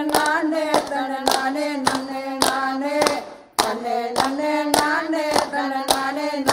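A man sings a Tamil devotional folk song into a microphone while a crowd claps hands together in steady time, almost two claps a second. The singing breaks off briefly about halfway through, and the clapping keeps going.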